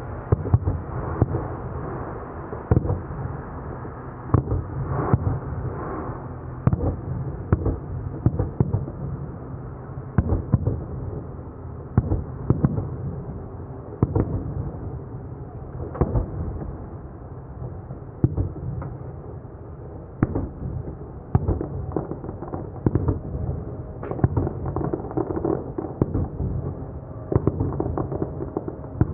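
Fireworks display: shells bursting in an irregular run of sharp bangs, often several in quick succession, over a steady background din.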